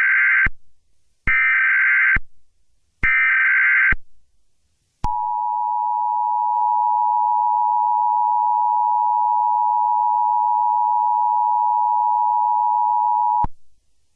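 NOAA Weather Radio Emergency Alert System alert: three short bursts of SAME header data tones, each under a second with a short gap between, then a steady single-pitched attention tone held for about eight seconds before it cuts off. The attention tone marks the start of a weather warning broadcast.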